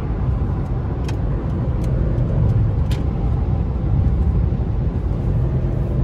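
Steady road and engine noise heard inside a car cabin while cruising on a freeway, a low even rumble. Two brief clicks come about a second in and again near three seconds.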